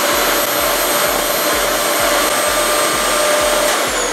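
Vacuum cleaner running with its floor nozzle on a shag rug: a steady rush of air under a high motor whine. Near the end the motor is switched off and its whine falls in pitch as it spins down.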